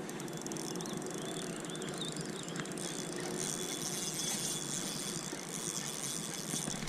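Steady outdoor background noise with a band of high hiss, and a few faint bird chirps in the first couple of seconds.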